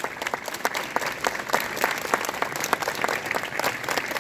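A crowd of schoolchildren clapping together with their hands held up, a dense patter of many claps that keeps on steadily.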